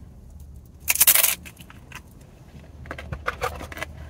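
Eating and food-handling sounds: a short crackly crunch or crinkle about a second in, then a run of small clicks and rustles near the end.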